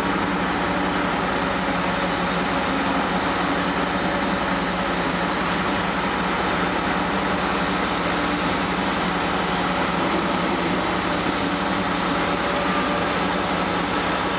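Diesel engine of a Samsung 350-size long-reach excavator running at a steady drone, heard from inside its operator's cab.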